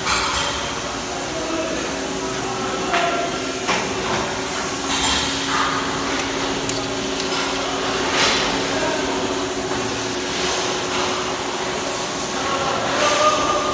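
Carcass-dressing work: irregular knocks and clinks over a steady mechanical hum and hiss, while the hide is worked off a hanging beef carcass.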